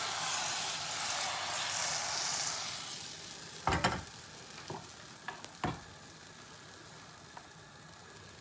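Appam batter sizzling as it is swirled around a hot non-stick pan, the hiss fading after about three seconds. Then a few knocks and clinks of the pan and a metal ladle.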